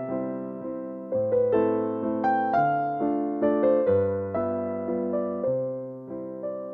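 Gentle background piano music: single notes struck and left to ring out over held bass notes.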